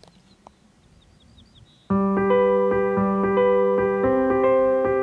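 Electric-piano-style keyboard music starts suddenly about two seconds in, playing sustained chords that change every half second or so. Before it there is near silence with a few faint high chirps.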